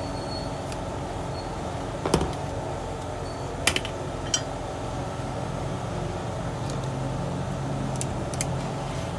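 A handful of sharp plastic clicks and taps as a Tecno 528 button phone is taken apart on a workbench, the loudest about two seconds in, over a steady low background hum.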